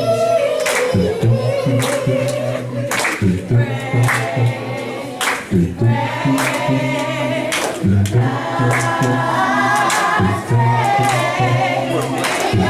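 Gospel choir singing over instrumental accompaniment, with a low sustained bass line and sharp percussive hits about every second.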